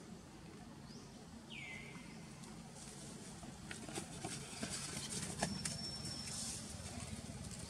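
Macaques scrambling over a plastic tarp: a run of scratchy rustles and knocks, with the sharpest knock about five seconds in. A short high call sounds once about a second and a half in.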